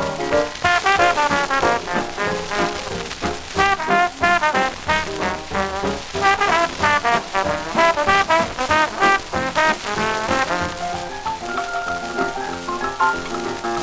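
Swing-era dance band instrumental with brass section, trombones and trumpets playing a rhythmic melody.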